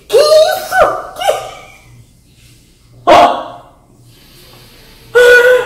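A dog barking: a few high, yelping cries in the first second and a half, then a single sharp bark about three seconds in.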